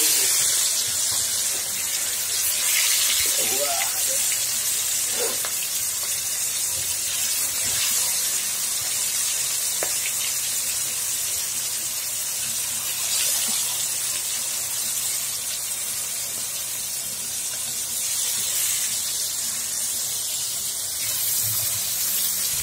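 Marinated fish pieces sizzling in hot oil in a karahi, a steady high hiss as the pieces fry.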